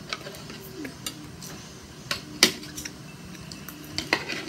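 Spoon and forks clinking and scraping on plates of fried rice: a few sharp taps spread out, the loudest about two and a half seconds in.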